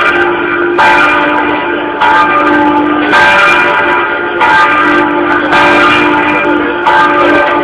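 Church bell swung full-circle (rung 'a slancio'), with its clapper striking about once every second and a bit, each stroke ringing on into the next over a steady hum.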